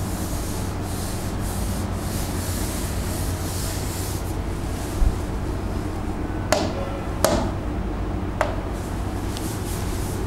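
Chalk being wiped off a greenboard by hand: a steady rubbing hiss, with a few sharp taps against the board about halfway through.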